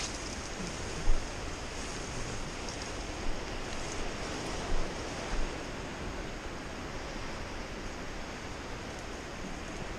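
Steady rushing wind noise on the microphone, with a few short thumps about a second in and again around the middle, while walking uphill through dense scrub.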